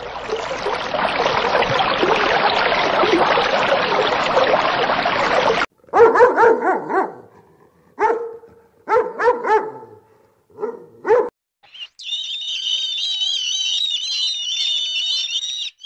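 A steady rushing underwater noise for the first six seconds, then a dog barking about seven times in short separate barks, then from about twelve seconds a flock of seabirds calling continuously in high, wavering cries.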